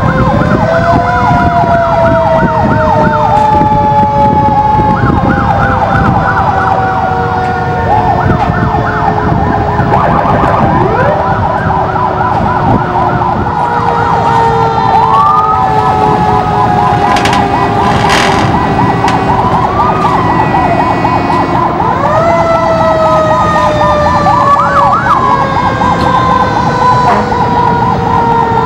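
Sirens of many antique fire trucks sounding at once: several long wails sliding slowly down in pitch, fast repeating yelps, and wails rising now and then, over a steady low engine rumble.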